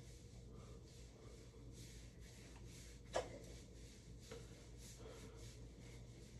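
Near silence with faint rubbing and scrunching of fingers working curl cream through wet curly hair, and one short, sharper sound about three seconds in.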